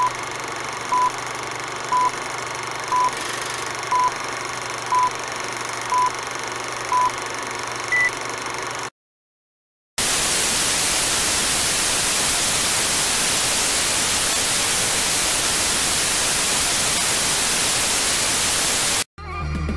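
Film countdown leader sound effect: a short beep once a second, eight times, over a steady hiss, ending in a single higher beep. After a second of silence, loud steady TV static hiss for about nine seconds, cutting off to music near the end.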